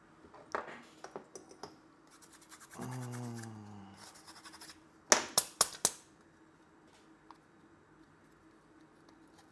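Clicks and scratches of small tools and parts being handled at a microsoldering bench, ending in a loud cluster of about five sharp clicks around the middle, then quiet apart from a faint steady hum.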